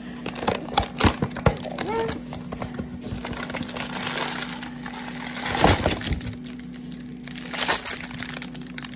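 Packing tape being peeled off a cardboard box and the box pulled open: clicks and handling noise, then a long stretch of tearing and cracking, loudest about five and a half seconds in.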